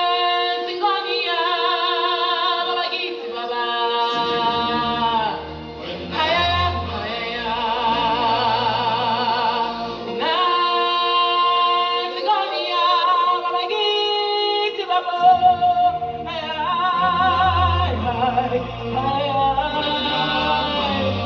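Show music with singing: voices holding long, wavering notes, with deep drum beats joining about four seconds in and again in the last few seconds.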